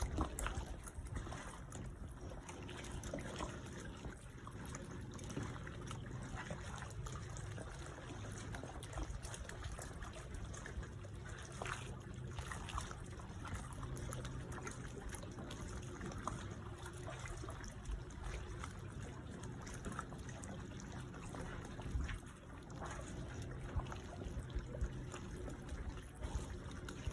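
Small sea waves lapping and splashing against a dock: a continuous sloshing wash with irregular slaps of water, a few of them louder.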